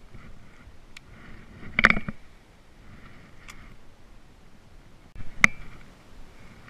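Fishing reel being cranked, a steady whir that stops for a moment and starts again, with a few sharp clicks and knocks of rod and gear handling, the loudest about two seconds in and another about five and a half seconds in.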